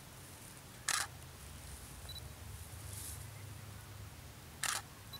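DSLR camera shutter firing, two single sharp clicks: one about a second in and one near the end.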